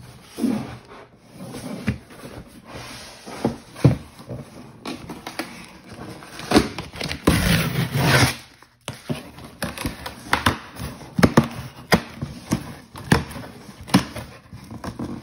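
A cardboard shipping box being opened by hand: packing tape slit and torn, with irregular scrapes, clicks and taps on the cardboard and a longer stretch of tearing about seven seconds in.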